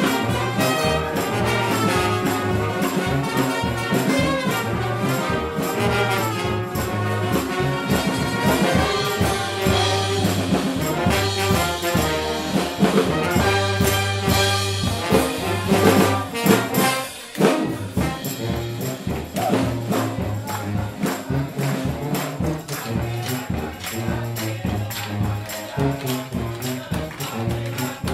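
Brass band playing a funk tune live: a sousaphone bass line under trombones, trumpets and saxophones, with percussion keeping the beat. About seventeen seconds in the music breaks off briefly, and the horns then play more sparsely.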